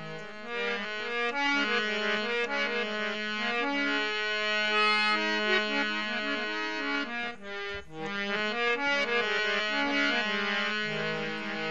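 Instrumental interlude of a Rajasthani (Marwari) bhajan: a melody of held notes on a reed-toned keyboard instrument over a steady low drone, with a short break a little past halfway.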